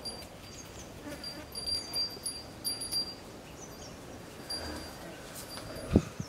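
Faint outdoor insect buzz with a steady high tone and a few short high chirps, broken by one sharp low thump about six seconds in.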